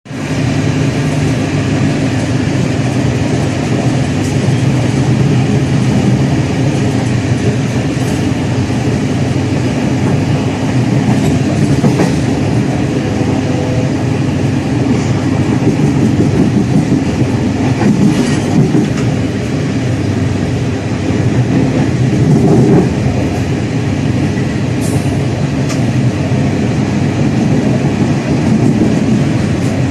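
Moving train heard from its last carriage: a steady rumble of wheels running on the track, with occasional sharp clicks.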